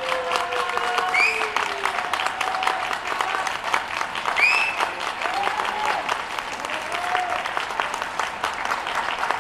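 Audience clapping steadily after an Electone performance, with a few voices calling out over the applause.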